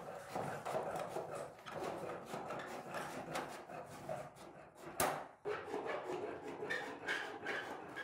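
Hand shears cutting a thin steel sheet, with a continuous rough crunching and rattling as the blades bite and the loose sheet flexes and wobbles, and one sharp click about five seconds in.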